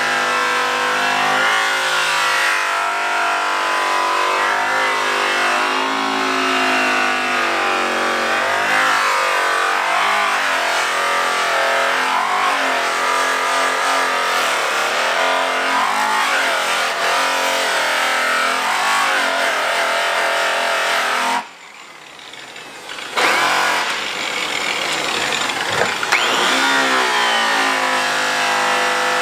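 Electric rotary buffers polishing aluminum truck wheels: a steady motor whine whose pitch sags and rises as the buff loads against the wheel. It cuts out about two-thirds of the way through and spins back up a second or two later.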